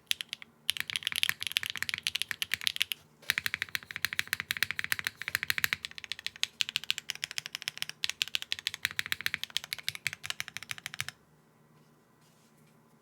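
Fast typing on a TGR 910 ME V2 mechanical keyboard with HMX Sunset Gleam linear switches on a polypropylene plate, top-mounted with no foam: a rapid run of clacky keystrokes with a short pause about three seconds in, stopping shortly before the end.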